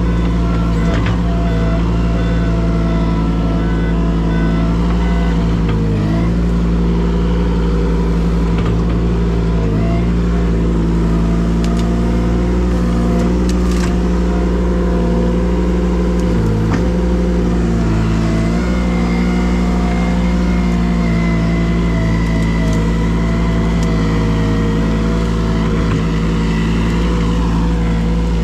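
An engine running steadily at high speed, its pitch sagging briefly every few seconds.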